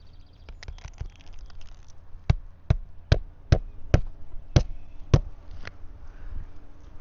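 A hammer driving new roofing nails into asphalt shingles: about seven sharp strikes, two to three a second, starting about two seconds in, with lighter rapid clicking before them.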